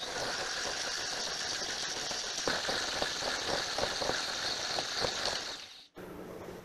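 Electric stand mixer motor whirring steadily while its dough hook kneads bread dough in a stainless steel bowl. From about two and a half seconds in, the dough knocks and slaps irregularly against the bowl. Just before the end, the sound cuts off abruptly and a quieter steady hum follows.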